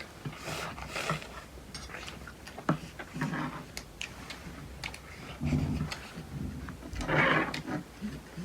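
Eating at the table: chewing and mouth sounds with scattered sharp clicks of cutlery and dishes.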